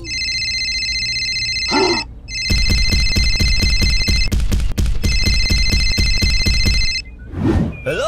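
Mobile phone ringtone: steady high electronic tones over a fast, even beat, breaking off briefly a couple of times and stopping about seven seconds in.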